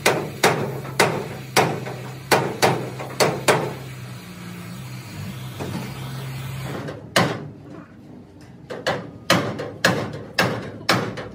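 Hammer blows on the steel roof frame of a damaged excavator cabin as it is beaten straight. A quick run of about eight blows is followed by a few seconds of steady low hum, which cuts off about seven seconds in, and then another run of blows near the end.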